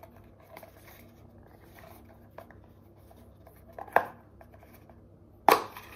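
Small cardboard box being handled and opened by hand: faint rustles and light clicks of the card, a brief louder tick about four seconds in, and a sharp click with rustling near the end.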